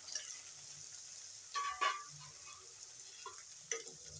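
Jackfruit pieces and sliced onions sizzling in hot oil in a kadhai, with a metal spatula scraping and stirring through them a few times, about one and a half seconds in and near the end.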